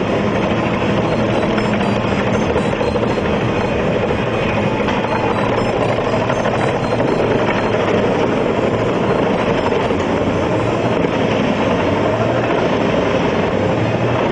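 Albach Diamant 2000 self-propelled wood chipper running under load while its crane feeds logs into the infeed. The engine and chipping drum make a loud, steady drone with no breaks.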